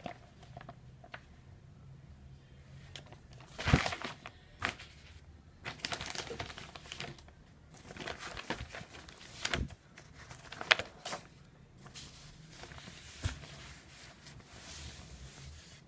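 Newsprint pages of a newspaper-format book being handled and turned: irregular crinkling paper rustles, some much louder than others.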